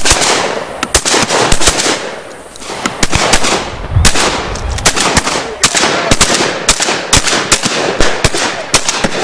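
Shotguns from several shooters firing in a rapid, irregular volley at driven pheasants: dozens of loud shots, often several a second, each with a short echo.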